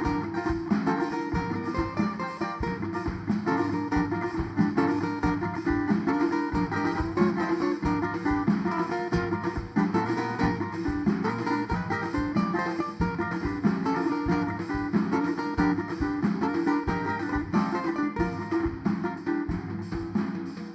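Instrumental music led by a strummed and plucked acoustic guitar, with a steady rhythm and no singing.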